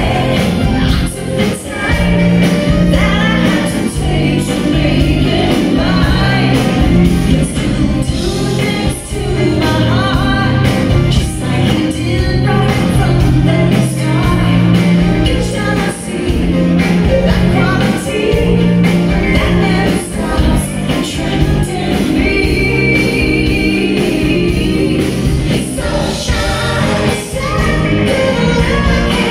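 Live band playing a pop-rock song with a woman singing lead, electric guitars, bass, drums and keyboards amplified through the PA, heard from the audience.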